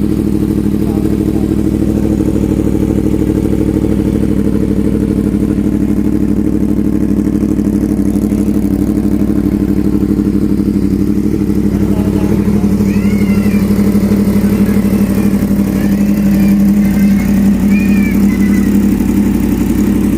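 Yamaha MT-10's crossplane inline-four running steadily at a raised idle through an SC-Project exhaust, not yet settled down to its normal idle after starting. It gets a little louder about three quarters of the way through.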